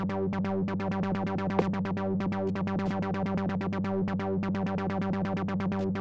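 Korg ARP ODYSSEi software synthesizer playing a fast, even stream of repeated notes over a steady low drone. A single sharp click sounds about one and a half seconds in.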